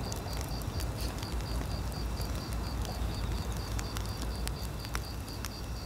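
Wood fire crackling with scattered sharp pops over a low steady rumble, while an insect chirps in a fast, even pulse.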